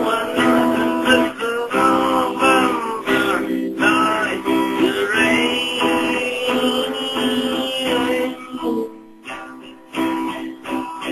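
Music: an instrumental passage of a song led by guitar, with held chords under a gliding lead line. It thins out briefly about nine seconds in.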